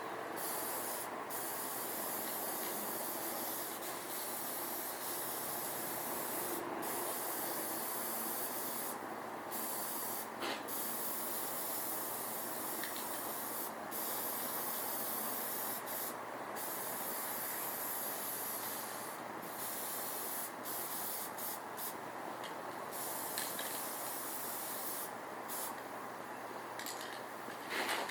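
Primer being sprayed: a steady spray hiss that breaks off briefly every few seconds as the spraying stops and starts.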